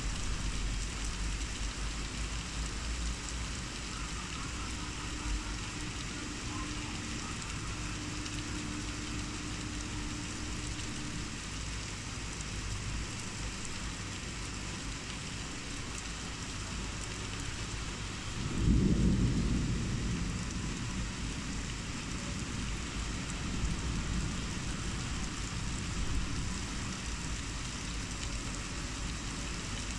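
Heavy rain pouring steadily. About two-thirds of the way through, a low rumble of thunder sets in suddenly, the loudest sound, and fades over several seconds.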